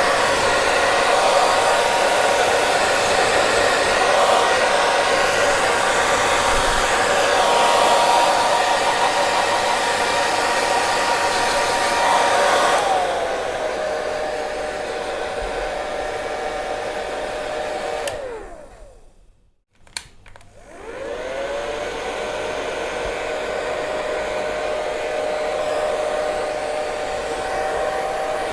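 Hair dryer blowing with a steady high whine over rushing air. About twelve seconds in it steps down to a lower, quieter whine. Around two-thirds of the way through it winds down and cuts out, there is a click, and it spins back up to the lower whine.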